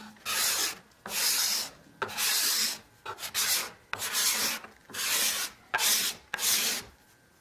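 A freshly sharpened steel cabinet scraper (card scraper) drawn across wood in about eight quick strokes, each a short hiss of roughly half a second at about one stroke a second.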